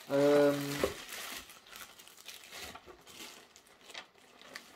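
Plastic bubble wrap crinkling and crackling as it is handled and pulled out of a cardboard box, a run of small irregular crackles. It opens with a brief, louder voice.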